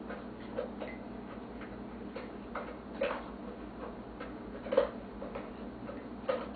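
Dog eating from a bowl: irregular clicks and crunches of food and bowl, with a few louder ones about three, five and six seconds in.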